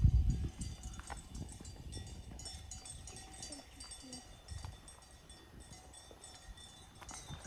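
Cowbells clanking irregularly with a faint lingering ring, mixed with footsteps; a low thump right at the start is the loudest moment.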